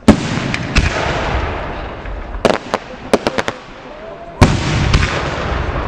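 Aerial firework shells bursting: a heavy bang at the very start that rolls away slowly, a single sharp crack just under a second in, a quick run of sharp cracks between about two and a half and three and a half seconds in, then a second heavy bang about four and a half seconds in that also rolls away.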